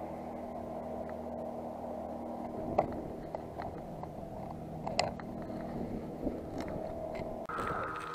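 An engine running steadily, its pitch shifting near the end. Two sharp clicks, about three and five seconds in, come from a metal jig lure being handled.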